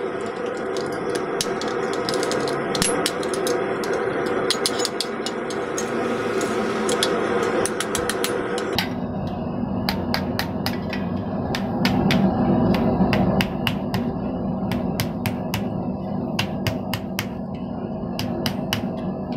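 Steady, rapid hand-hammer blows on hot thin sheet steel against a steel anvil, several strikes a second throughout.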